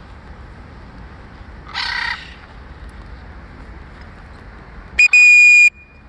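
A single harsh bird call about two seconds in. Near the end comes a very short blip and then a loud, steady, high-pitched whistle tone lasting about half a second. The whistle tone is the loudest sound.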